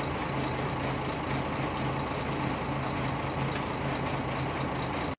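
A steady, low engine-like hum with an even mechanical noise over it, unchanging throughout, cutting off abruptly at the end.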